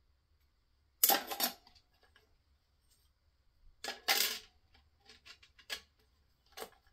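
Clutch plates from a GM 4L80E automatic transmission clinking and clattering as they are lifted out of the case and handled. There are two loud clusters of clatter, about one and four seconds in, then several lighter clicks and one more clink near the end.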